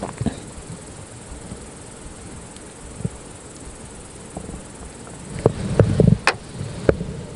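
Night insects, crickets, chirring steadily in the background, with a few sharp clicks and a low knock of tackle being handled a little past five seconds in.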